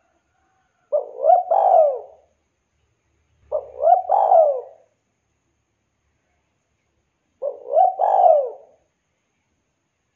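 Spotted dove (tekukur) cooing: three calls, each a quick phrase of rising and falling coos about a second and a half long. The first two calls come close together and the third follows after a longer pause.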